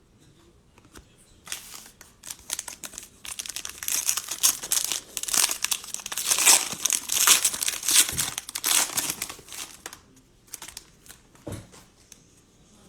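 Cellophane wrapper of a trading-card cello pack crinkling and tearing as the pack is opened by hand. Dense crackling for several seconds, loudest in the middle, then a few light clicks and rustles near the end.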